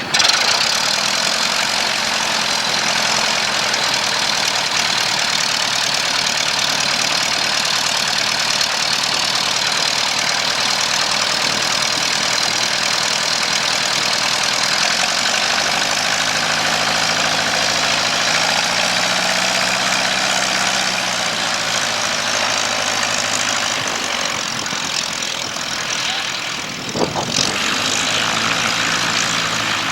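Light propeller airplane's piston engine running steadily just after start-up, its low note rising for several seconds in the middle and settling back, with a brief dip and knock near the end.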